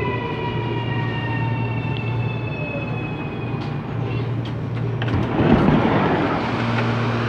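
CAF Series 8500 electric multiple unit's traction motors whining in several slowly falling tones over a steady heavy drone, as the train slows. About five and a half seconds in a brief rush of noise swells up, and then steady low hums take over.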